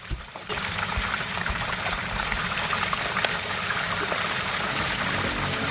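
Chicken pieces shallow-frying in hot oil in a frying pan, sizzling and crackling steadily. The sizzle comes in abruptly about half a second in.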